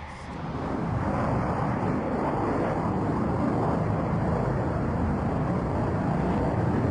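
Twin turbofan jets of a MiG-29M OVT thrust-vectoring fighter flying a display: loud rushing jet noise that swells over about the first second, then holds steady.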